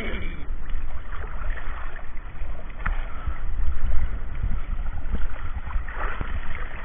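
Sea water washing and splashing around the bathers, with wind rumbling on the microphone.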